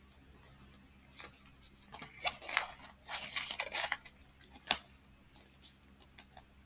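A new black Roxy wallet being opened and handled: scratchy rustling noises in stretches about two to four seconds in, then a single sharp click.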